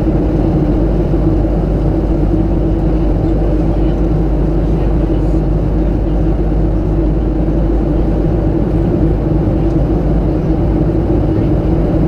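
Steady cabin drone of a Boeing 737-700 in flight, heard from a window seat: its CFM56-7B turbofan engines and the airflow over the fuselage, a constant rushing noise with a low hum that does not change.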